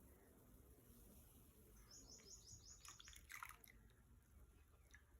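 Near silence, with a faint bird chirping in a quick trill of high notes for about a second, about two seconds in.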